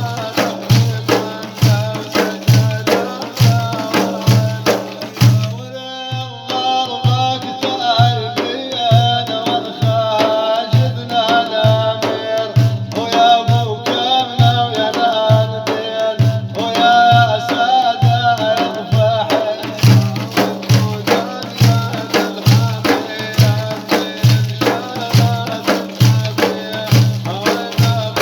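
Arabic folk music with a steady, regular drum beat; a sustained melody line comes in about six seconds in and drops out at around nineteen seconds, leaving the drums and accompaniment.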